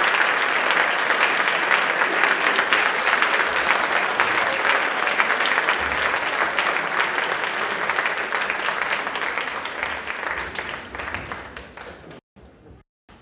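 Audience applauding, a dense patter of many hands that dies away from about ten seconds in; the sound cuts out briefly twice near the end.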